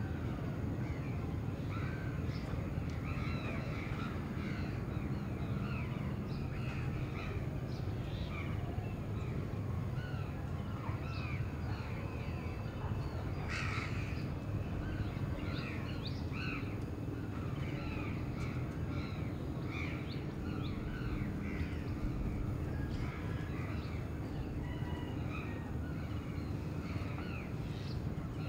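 Crows cawing among many short bird calls, with one louder call about fourteen seconds in, over a steady low rumble of morning city sound.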